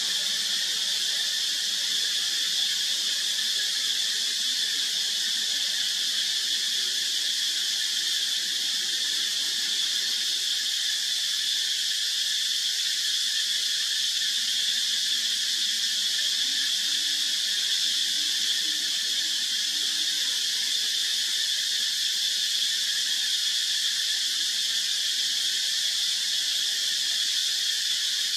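Loud, steady chorus of insects, a high continuous drone without breaks.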